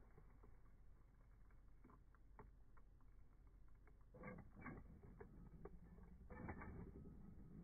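Faint sound of a 1/10 scale brushless RC monster truck clawing up a loose dirt slope: tyres scrabbling and flinging dirt, with scattered clicks and two louder bursts about four and six and a half seconds in.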